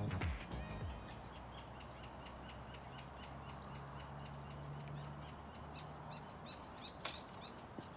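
Outdoor ambience with a small bird chirping, short high calls repeated about three times a second. A faint low hum runs through the middle, and a single sharp click sounds near the end.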